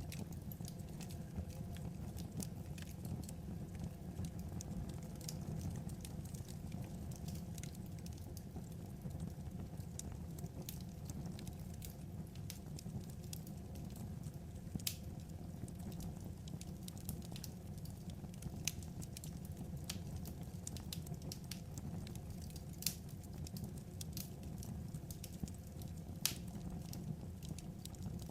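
Wood fire crackling: irregular sharp pops and snaps over a steady low rumble of flames.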